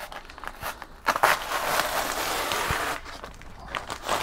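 Protective plastic and paper wrapping being peeled and pulled off an aluminium panel: a crinkling rustle that starts about a second in and lasts about two seconds, with softer crackles around it.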